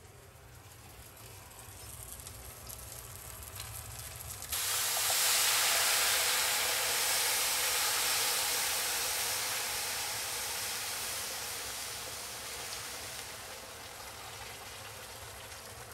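Boiling water poured from a kettle into a hot wok of pan-fried fish. About four and a half seconds in, the water hits the hot oil and metal with a sudden loud sizzle and hiss, which slowly dies down into the sound of water pouring and bubbling.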